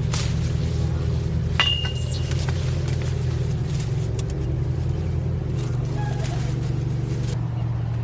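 Steady low engine drone, with a few light clicks and a brief high ring about one and a half seconds in.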